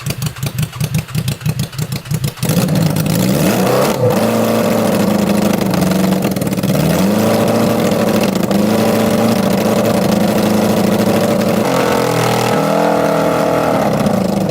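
A 650cc motorcycle engine in a John Deere lawnmower idling with an uneven, pulsing beat, then opening up loudly about two and a half seconds in. It revs hard, its pitch climbing and dropping back several times as it pulls away.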